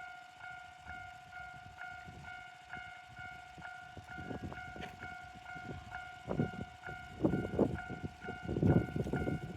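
Railway level crossing's electronic warning bell ringing at about two strikes a second, a high-pitched version of the normal crossing sound. From about four seconds in, a train passes, its wheels clattering over the rail joints in rhythmic groups that grow loudest near the end.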